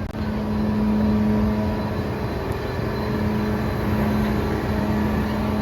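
Engine running steadily with a constant hum and rumble, growing slightly louder toward the end.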